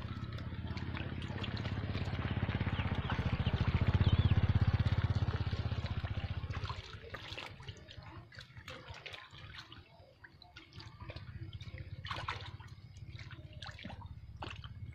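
Water splashing and dripping in a shallow tank crowded with frogs, small drips and splashes throughout. For the first seven seconds a louder rushing rumble swells up and then drops away suddenly.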